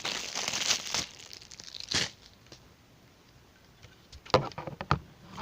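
Packaging crinkling as a small power plug is unwrapped, with a short crackle about two seconds in, a quiet stretch, then a few sharp crinkles and clicks near the end.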